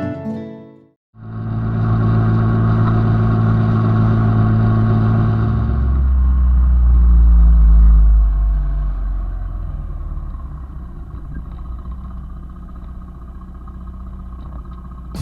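A motor vehicle's engine running at a steady pitch. About six seconds in, the pitch drops into a louder low rumble, which then fades gradually.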